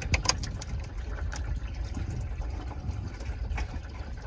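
Coolant trickling steadily out of the open radiator drain, with a few light metallic clicks as a small screwdriver pries at the upper radiator hose's metal retaining clip.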